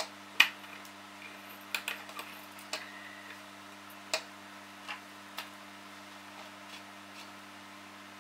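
Irregular small clicks and taps of metal parts being handled as a CD-ROM stepper motor is fitted onto the drive's lens sled mechanism, over a faint steady hum.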